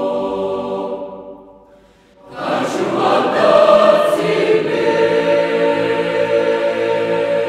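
Mixed choir of men's and women's voices singing: a held chord fades into a short pause about two seconds in, then the choir comes in again loudly and holds a new chord.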